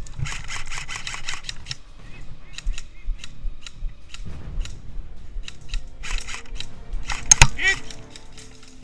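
Airsoft guns firing: a rapid burst of about nine shots a second, then scattered single shots and another quick burst, ending with a shout of 'Hit' as a player is struck.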